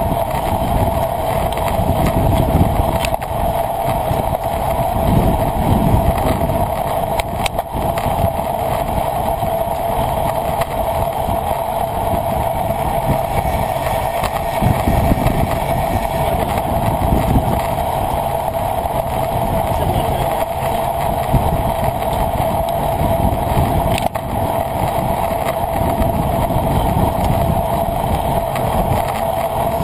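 Wind buffeting the microphone of a camera riding on a moving road bicycle: a churning rumble over a constant hum, with a few faint clicks.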